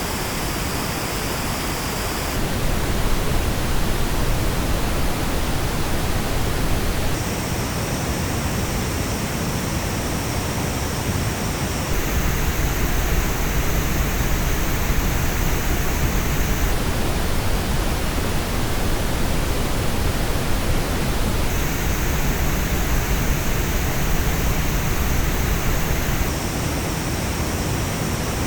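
Pink noise test signal played through Superlux headphones and recorded, switching between headphone models about every five seconds. Each switch abruptly changes the tone of the hiss, with the treble and bass balance shifting from one headphone to the next.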